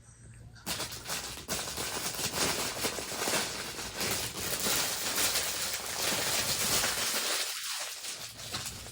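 Plastic packaging crinkling and crackling as it is handled, starting about a second in.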